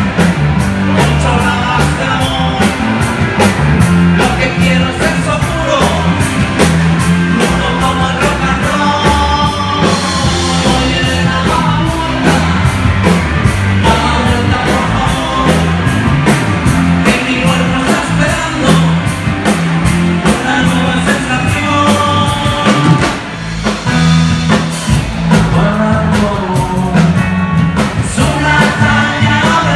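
Live rock band playing loudly through PA speakers: drum kit and guitars under a male lead singer.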